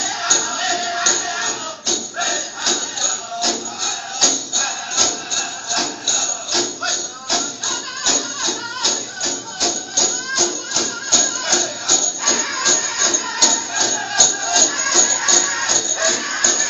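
Powwow drum song for a Prairie Chicken Dance: a steady, fast drumbeat with singers' voices over it, and the jingling of the dancer's leg bells.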